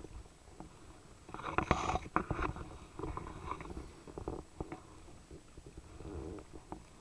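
Kayak paddle strokes: water splashing and dripping off the paddle blade, with a cluster of small clicks and knocks about one and a half to two and a half seconds in and scattered clicks after.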